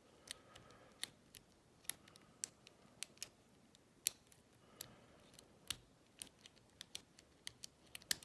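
Lock pick and tension wrench working the pins of an old Yale pin-tumbler padlock: irregular sharp metallic clicks, about one or two a second, with faint scraping between some of them.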